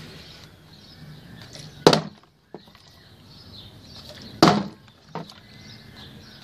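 A plastic drink bottle with a little water in it being flipped and hitting wooden decking: a sharp thud about two seconds in and another about four and a half seconds in, the second followed by a lighter knock.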